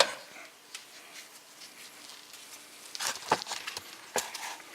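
Hand ratchet and metal tools clicking on a brake caliper bolt. There are scattered light ticks at first, then a short cluster of sharp clicks and knocks about three seconds in.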